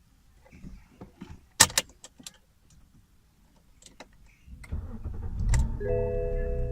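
Keys rattling and a few sharp clicks, then about four and a half seconds in the BMW 525i's N52 straight-six cranks, catches and settles into a steady idle. Near the end a set of steady electronic tones, like a chime or the car's audio coming on, sounds over the engine.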